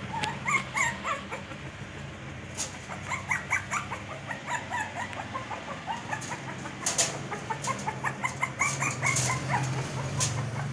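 Shih tzu puppy whining and yelping in short, high-pitched cries, over and over, while scratching and knocking at a screen door, wanting it opened.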